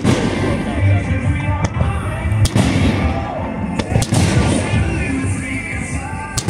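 Aerial fireworks shells bursting overhead, four sharp bangs one to two seconds apart.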